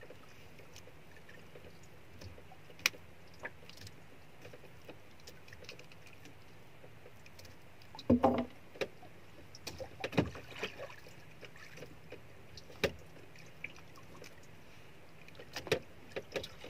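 A caught coral grouper being unhooked and handled on a small boat: scattered clicks and knocks of hook, jig and fish. There is a louder rustling knock about eight seconds in and a few sharper knocks after it, over a steady low hiss of sea and wind.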